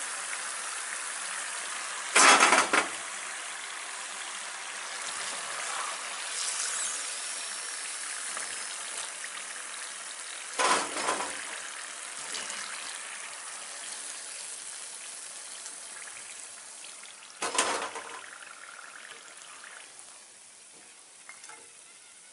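Spiced batter-coated chickpeas deep-frying in hot oil in a kadai: a steady sizzle that slowly dies down toward the end. A perforated steel skimmer clatters against the pan three times, about two, eleven and seventeen seconds in.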